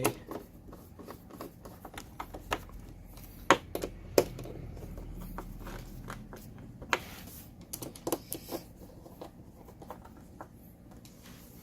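Hard parts being handled and fitted together by hand while assembling a TV mount: scattered sharp clicks and knocks, a few at a time, with quiet handling in between.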